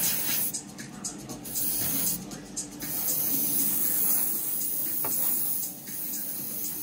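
Airbrush spraying grey paint in hissing bursts: three sprays, with brief pauses about half a second in and about two seconds in, the last lasting about three seconds.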